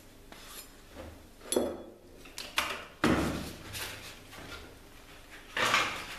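Handling noise at a stopped belt grinder: a few separate knocks and scrapes as the knife blank is set aside and the abrasive belt is slipped off its wheels. The loudest come about three seconds in and near the end.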